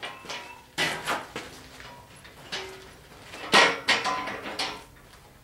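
A few sharp clanks and knocks of metal parts or tools being handled, the loudest about three and a half seconds in, some with a short ring after them.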